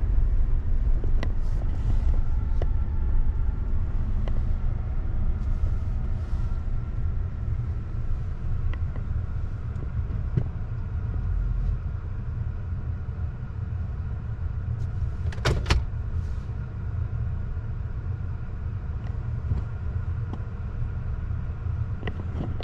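Motor vehicle running with a steady low rumble, a few light clicks, and a sharp double click about fifteen seconds in.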